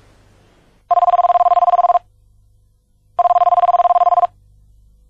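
Landline telephone ringing twice, an electronic two-tone trilling ring of about a second each with a pause of just over a second between rings.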